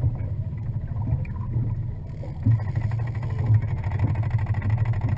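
Low, uneven rumble aboard a fishing boat on the water, with a couple of louder thumps.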